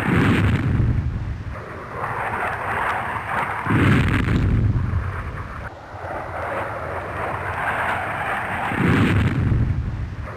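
Airplane flyover sound effect: a steady roaring hiss broken by deep rumbling surges about every four and a half seconds, as if the same stretch were looped.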